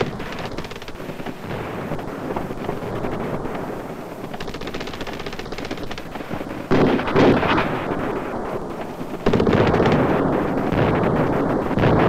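Rapid automatic small-arms fire from infantry rifles and machine guns. It turns suddenly louder for about a second at roughly seven seconds in, then again from about nine seconds in.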